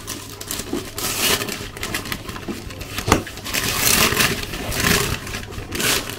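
Cardboard cake box being opened: the lid scrapes and rustles against the box in several noisy surges, with a sharp knock about three seconds in.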